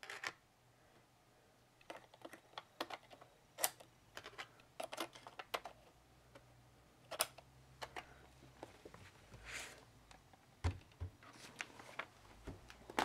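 Irregular small clicks and taps of RAM modules being pulled out and reseated in a laptop's memory slots.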